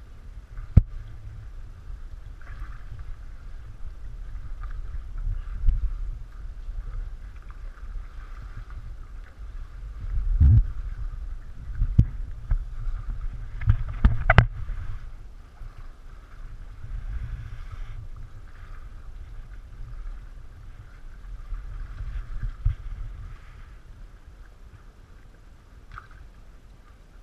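Inflatable canoe drifting on water, with water lapping and a low rumble throughout. There is one sharp knock near the start and a cluster of louder knocks and bumps around the middle.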